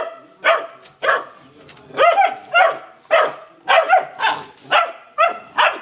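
Newfoundland puppies barking back and forth in short, pitched barks, about two a second without a break, as they play together.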